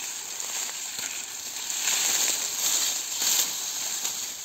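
Dry sugarcane leaves and trash rustling and crackling as a cane stalk is pulled and handled, with louder crackles about two seconds in and again a little after three seconds.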